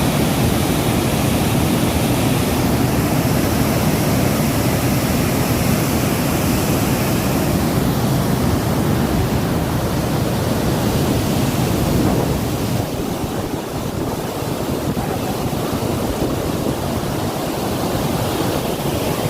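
Water released through the open gates of a dam, rushing in a loud, steady wash of noise that eases slightly about two-thirds of the way through.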